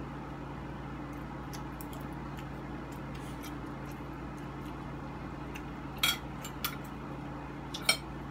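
Spoons and forks clinking and scraping against plates as food is scooped up, with a few sharp clinks near the end, over a steady low hum.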